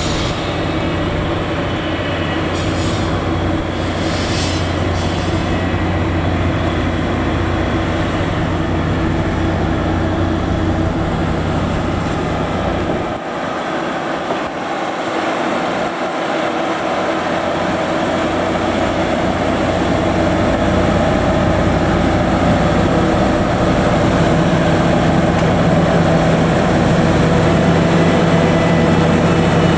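Diesel engine of a track-maintenance motor car running steadily as it pushes a rake of chiki rail-carrying flat wagons along the track. It grows louder in the second half as it comes near.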